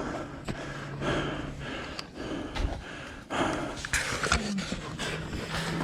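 A person breathing hard and panting close to the microphone, in repeated heavy breaths. A low steady hum runs under it for the first second and a half and comes back near the end.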